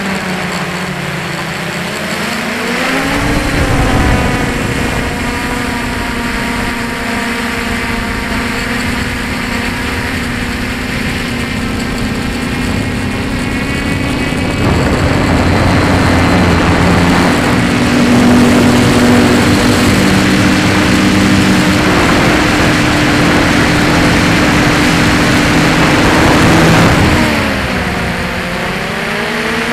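Multirotor drone's electric motors and propellers whining steadily, heard from the drone's own onboard camera, over a constant rushing hiss. The whine drops in pitch and climbs back within the first few seconds and again near the end as the throttle changes.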